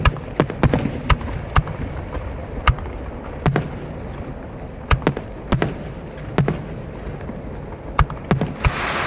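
Fireworks display: aerial shells bursting in a quick, irregular run of sharp bangs, about fifteen in all. A loud hissing rush swells in near the end.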